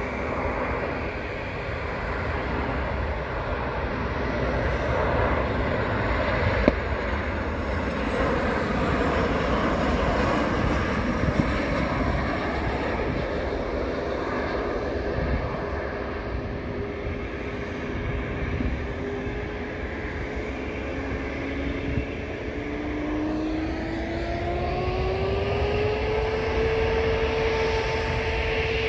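Boeing 737 airliner jet engines: a steady rush of engine noise, then, about three quarters of the way through, a whine rising in pitch over a few seconds and holding as the engines spool up.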